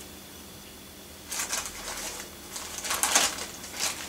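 A plastic bag of loose model coal ballast being handled, crinkling with the small granules rattling inside. It comes as several short bursts, starting about a second in.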